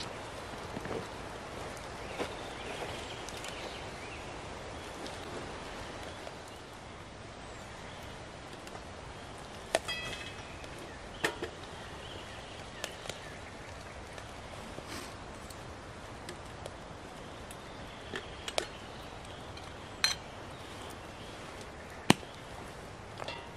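A handful of sharp, single knocks or clicks, spaced a second or more apart, over a steady background hiss.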